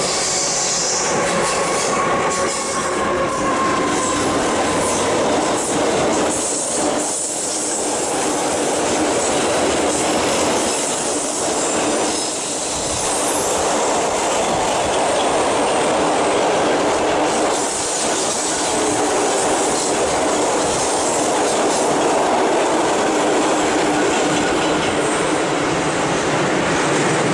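Electric-hauled freight train rolling steadily past on curved station track, a long rake of flat wagons loaded with military vehicles, with continuous wheel-on-rail noise.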